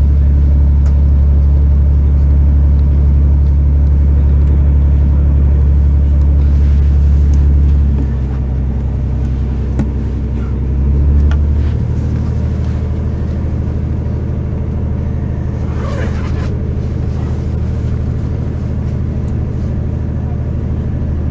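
Passenger train running noise heard inside the carriage: a loud, steady, low engine hum as a diesel multiple unit pulls away under power. It drops in level about eight seconds in and changes pitch again around twelve seconds, with a brief rattle a few seconds later.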